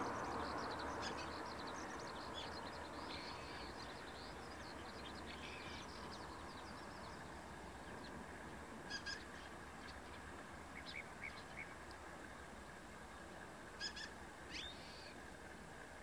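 Wild birds calling outdoors: a busy run of short, high chirps for the first several seconds, then scattered single calls, over a steady wash of outdoor background noise.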